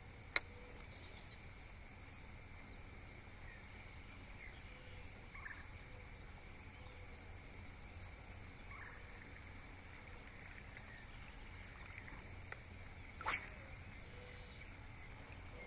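Faint still-water ambience at dawn with a few distant bird calls, then a sharp click about half a second in. Near the end comes a short swish as a fishing lure is cast out toward a cypress trunk.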